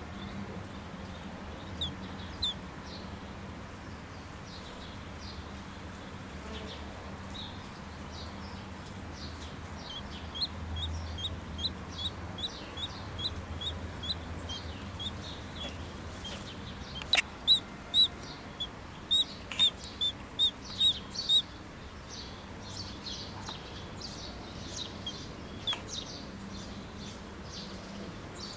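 Duckling peeping: short high peeps, scattered at first, then a loud quick run of about a dozen a little past the middle, over a faint steady low hum.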